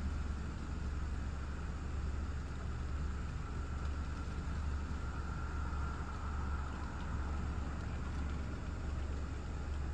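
Thunderstorm outflow wind: a steady rushing noise with a strong low rumble.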